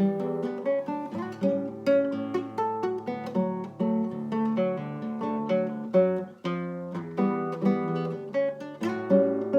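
Acoustic guitar music: a steady stream of plucked notes and chords, each ringing and fading before the next.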